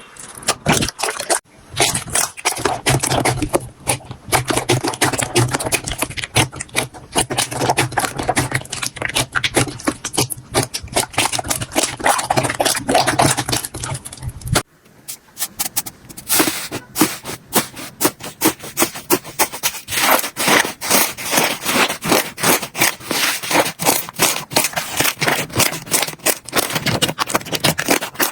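Slime being squished and pressed by hand, a dense run of crackles and pops. About halfway through it cuts to another slime with sharper, thinner clicking.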